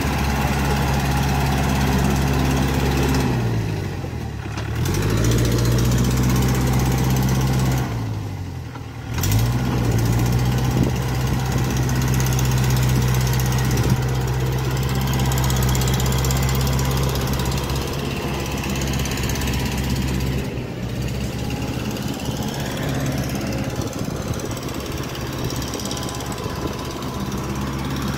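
Kubota L4508 tractor's diesel engine labouring in deep paddy-field mud. Its revs sag sharply and climb back twice early on, then hold steady under load. After a cut near the end it sounds further off and rougher.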